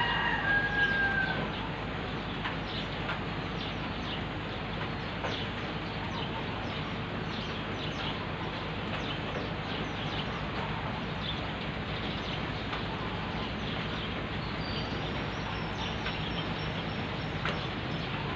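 Steady rain falling on a wet road and foliage, with scattered light ticks. A rooster's crow trails off about a second and a half in.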